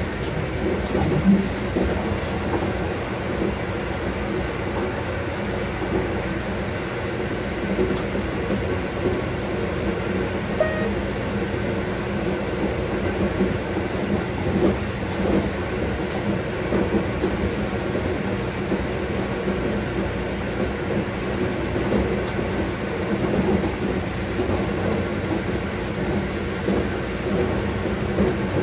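Inside the cab of an FS E652 electric locomotive running along the line: a steady rumble of wheels on rail with a constant motor hum, and irregular small knocks from the track.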